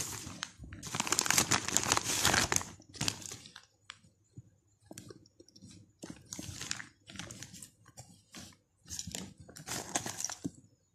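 Plastic shopping bag and thin plastic wrapping crinkling and rustling as a clutch purse is pulled out and handled, in irregular bursts, loudest in the first three seconds and then in shorter spurts.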